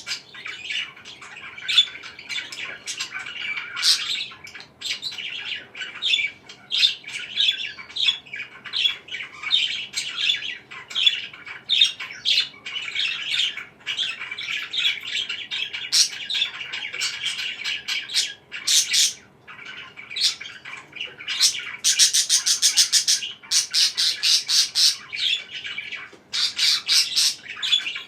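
Pet parakeets chirping and chattering without pause, mixed with short squawks. About two-thirds of the way through comes a louder run of rapid, harsh repeated calls.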